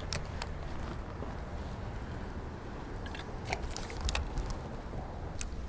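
A few scattered sharp clicks from handling a spinning rod and reel, over a steady low rumble.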